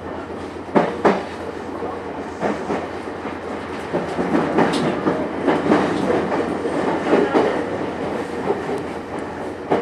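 Meitetsu 6500 series electric train running, heard from inside the car: steady rumble with wheels clacking over rail joints, including two sharp knocks about a second in.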